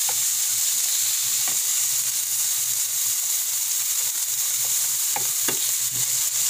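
Cubed tuna sautéing in oil with onion, garlic and ginger in a nonstick frying pan, stirred with a wooden spatula. A steady high sizzle runs throughout, with a few brief knocks of the spatula against the pan.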